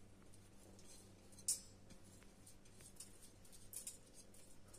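Faint scraping and rustling of washed wet rice being tipped and scraped from a glass bowl into a stainless steel pot, with one sharper tick about a second and a half in.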